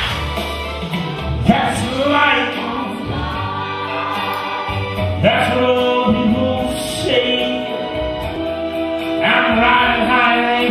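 Music with a singing voice: a sung melody with long held notes over instrumental accompaniment.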